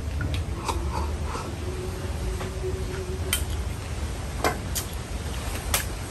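Scattered light clicks and taps of utensils against bowls and dishes at a home meal, about a dozen in all, over a steady low rumble.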